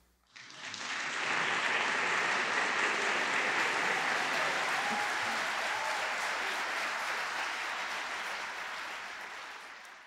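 Lecture audience applauding as the talk ends. The clapping comes in just after the start, holds steady, then fades out near the end.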